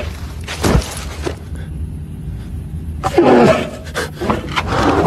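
Horror-film soundtrack: a steady low rumble with a couple of sharp hits in the first second or so. About three seconds in comes a deep, guttural growl that falls in pitch.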